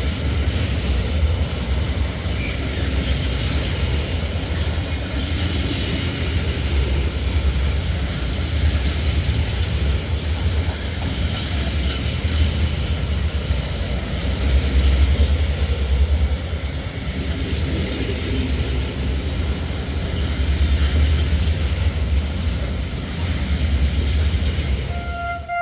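A train running past, a steady loud rumble.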